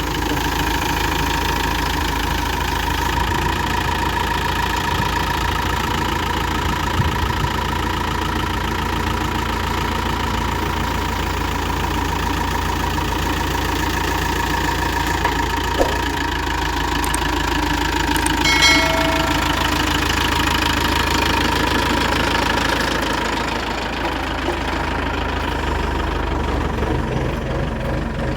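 Diesel engine of a Tata 315V backhoe loader running steadily. About two-thirds of the way through, a brief high tone sounds over it.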